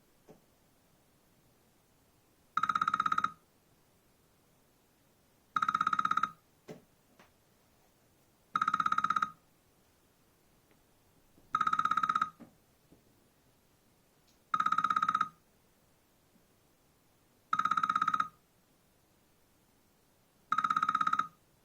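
iPhone X incoming-call ringtone in an old-style telephone ring: a short trilling ring of under a second, repeating about every three seconds, seven times.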